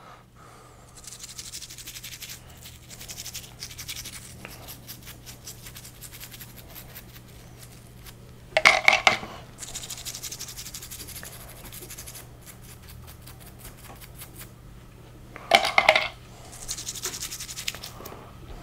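A toothbrush scrubbing small metal differential gears clean, a fast, steady scratching of bristles on metal. Twice there is a louder brief clatter, once midway and once near the end.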